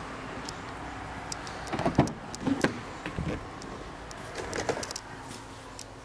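A Ford S-Max's car door being opened, with the handle and latch making a cluster of clicks and clunks about two seconds in and a few more knocks about four and a half seconds in.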